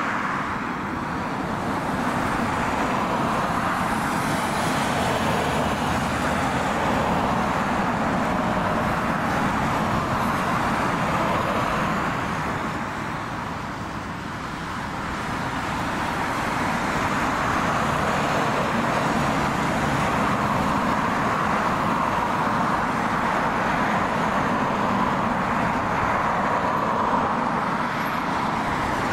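Jet aircraft engines running, a loud steady roar that fades about halfway through and then swells again.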